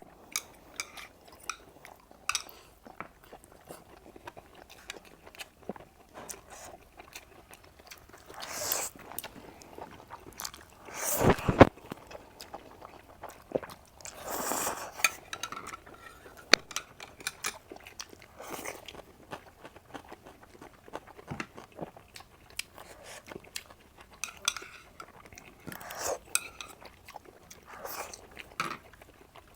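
A person eating close to the microphone: chewing and biting noodles and sausage, with scattered sharp clicks of cutlery against dishes. A few longer, louder noisy stretches stand out, the loudest about eleven seconds in.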